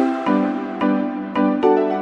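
Background music: soft keyboard-like notes and chords struck about twice a second.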